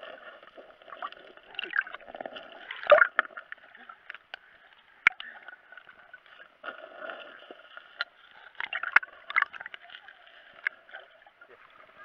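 Muffled water sloshing and gurgling, heard from a camera held underwater, with scattered sharp clicks and knocks, the loudest about three seconds in, as a Labrador swims and paws over the pebbly seabed.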